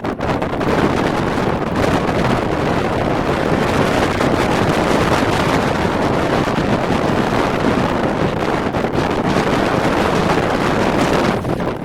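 Hurricane-force wind blasting across the microphone: a loud, dense, steady rush that eases slightly near the end.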